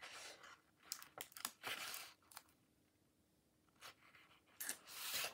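Faint crinkling and rustling of a clear stamp sheet and its paper insert being handled: several short rustles in the first two seconds, a pause, then a longer rustle near the end.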